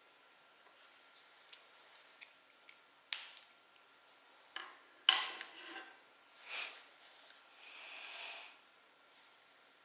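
Small objects handled on a work surface: light clicks and taps, a sharper knock with a short clatter about five seconds in, then a brief scrape and a longer soft rubbing stroke, such as drawing tools set down and drawn across paper.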